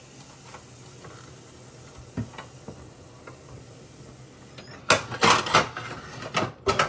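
Quiet room tone, then about five seconds in a burst of loud rustling and scraping knocks, with a second cluster near the end: handling noise from a handheld phone rubbing against a cotton top.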